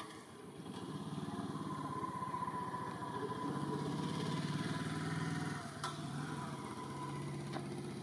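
An engine running with a steady hum, growing louder about a second in and easing off slightly after five seconds.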